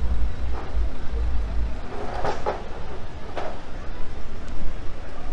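City street traffic: a steady low rumble of vehicle engines running in the lane beside the pavement, with a few short louder sounds about two and three and a half seconds in.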